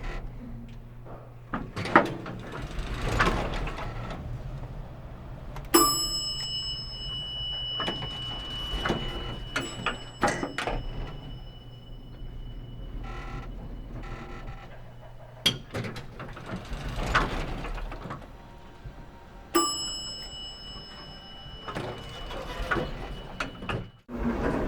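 Elevator in operation: a steady low hum under clunks and the swish of doors sliding, with the arrival chime dinging twice, about six seconds in and again near twenty seconds, each ding ringing on for several seconds.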